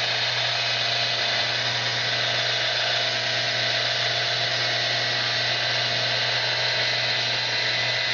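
Diamond-blade wet saw running steadily while cutting a block of fossil-bearing rock: a high-pitched whine over a steady low hum.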